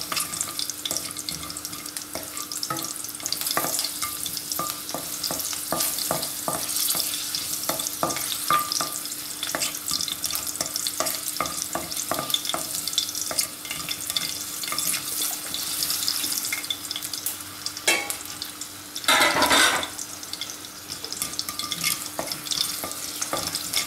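Mustard seeds and green chillies sizzling and crackling in hot oil in a kadai while a wooden spatula stirs and scrapes the pan: a tempering being cooked through. A brief louder rush of noise comes about three-quarters of the way through, over a faint steady hum.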